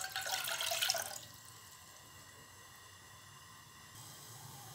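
Water poured from a glass measuring cup into a saucepan, splashing briefly for about the first second before the pour ends.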